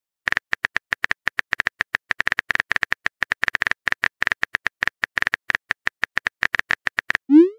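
Phone-keyboard typing sound effect: a long run of identical sharp clicks, several a second. Near the end comes a short rising swoop as the message is sent.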